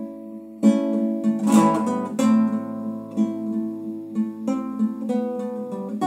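Solo acoustic guitar strumming and picking chords, a new chord struck about every second.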